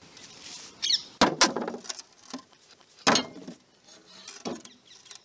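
Bricks and a heavy glass bottle being set down on a metal plate lid over a cooking pot: several separate knocks and clanks, weighing the lid down to seal the pot.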